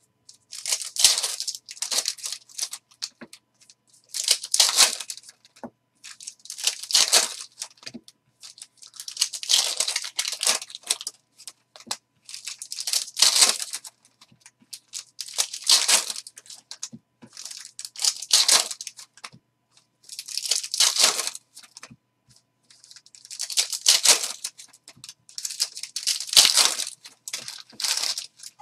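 Foil trading-card pack wrappers being torn open and crinkled by hand, in about ten short bursts of tearing with brief pauses between.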